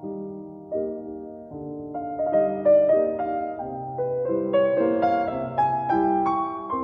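Background music: solo piano playing a gentle melody of notes that climb higher toward the end.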